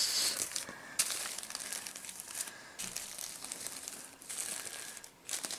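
Small plastic zip-lock bags of diamond-painting drills crinkling and rustling as they are handled and shifted about on the canvas, in irregular patches starting about a second in.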